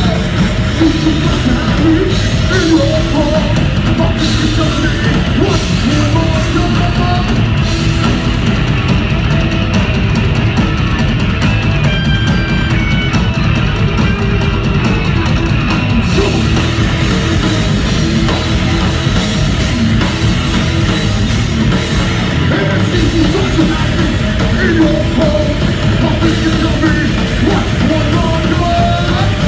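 Live heavy rock band playing loud: distorted electric guitar, drum kit and a vocalist singing into a microphone.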